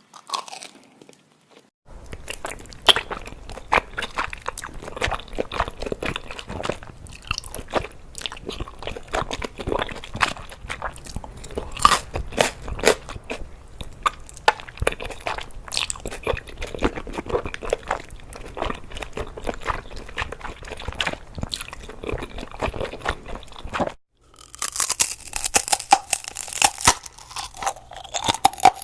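Close-miked crunchy food being bitten and chewed: dense, irregular crackling crunches. A brief dropout about 24 seconds in breaks the run, and a brighter stretch of crunching follows.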